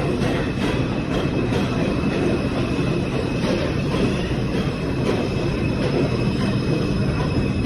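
New York City Subway 2 train (R142 cars) running through the station: a steady rumble of wheels and motors, with rhythmic clacks over the rail joints in the first second or so and a faint high wheel whine throughout.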